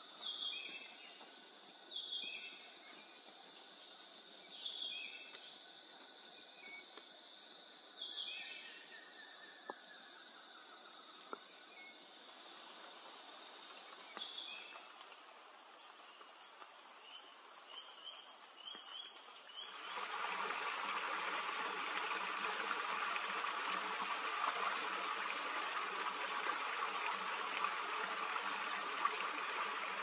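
Rainforest insect chorus, with a bird repeating a short two-part call every two to three seconds and a shrill high insect whine joining from about twelve seconds. About twenty seconds in, the sound switches to a steady rush of running water over the insects.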